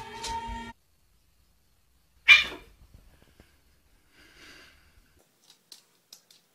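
A single short, sharp puff of breath from an animal about two seconds in, with a few light clicks near the end.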